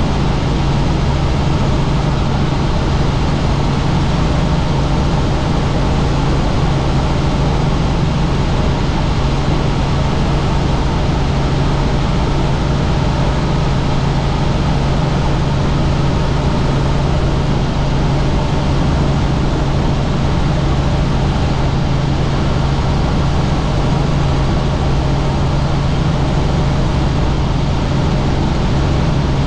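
Helicopter in flight, heard as a loud, unbroken drone: a steady wash of rotor and engine noise over a strong low hum.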